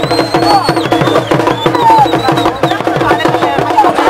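Drum-led Sudanese folk dance music: a fast, even drumbeat of about five strokes a second under a steady held tone, with a high whistle-like tone over the first second.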